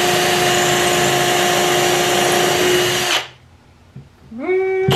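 Cordless drill driving a screw into the wooden birdhouse, its motor whining at a steady speed. It stops about three seconds in, then spins up again with a rising whine near the end.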